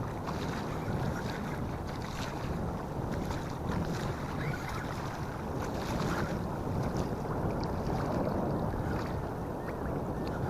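Steady wind buffeting the microphone over open water, with a few faint short ticks.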